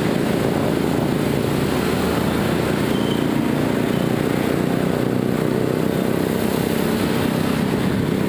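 Motorcycle riding through traffic: steady wind noise over the microphone mixed with the engine running.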